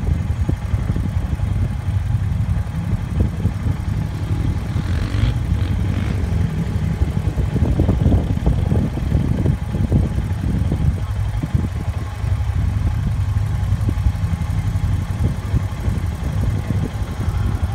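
ATV and side-by-side engines running, a steady low rumble.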